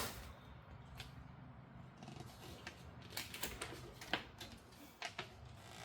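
Scattered light clicks and taps as parts of a flat-pack storage cart are handled and fitted together, bunched up in the second half.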